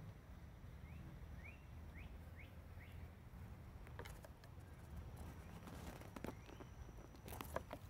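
Faint outdoor ambience: a bird repeats a short rising chirp about twice a second. From halfway on, dry twigs and leaf litter crackle and rustle, loudest near the end.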